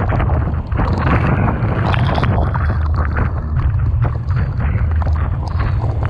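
Typhoon-force wind buffeting the microphone with a heavy, constant low rumble, over the rushing wash of crashing waves in rough sea. Many sharp crackles and ticks of blowing sea spray striking the camera run through it.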